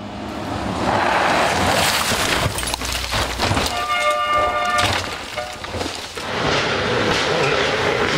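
Rally car driving hard on a loose-surface stage, with a hiss of tyres and gravel and an engine note that builds in. A brief held tone with several pitches sounds about four seconds in.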